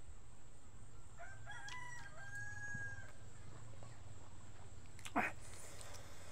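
A rooster crowing once: a call that steps up and then holds steady for about a second, about two seconds long in all, over a low steady hum. A brief sharp knock comes about five seconds in.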